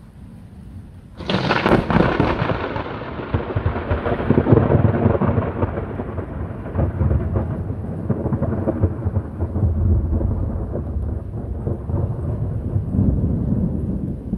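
Thunder from a nearby cloud-to-ground lightning strike: a sudden sharp crack about a second in, then a long rolling rumble that carries on for over ten seconds.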